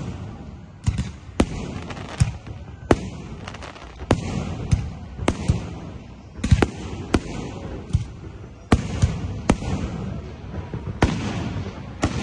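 Aerial fireworks shells bursting one after another: sharp bangs at irregular intervals, roughly one or two a second, with a low rumble between them.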